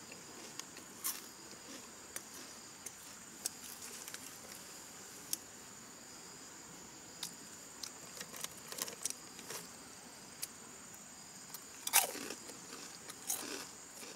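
Snack bag crinkling and crunchy chewing in scattered short crackles, the loudest about twelve seconds in, over a faint steady high-pitched drone of insects.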